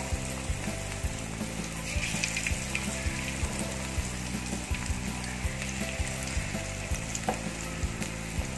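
Egg and gram-flour fritter batter deep-frying in hot oil in a metal kadai: a steady bubbling sizzle, with a metal spoon stirring through the oil now and then.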